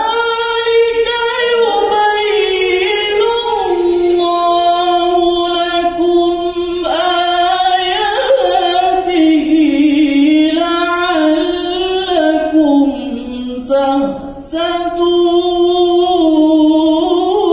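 A man reciting the Quran in the melodic tilawah style into a handheld microphone, drawing out long, ornamented held notes that waver up and down in pitch. The phrase breaks once for a breath about two-thirds through, then resumes.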